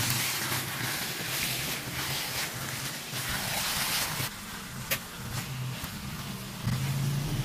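Goat meat and spice paste sizzling as they sauté in a frying pan while being stirred with a spatula, with scrapes and taps of the spatula on the pan, one sharper tap about five seconds in.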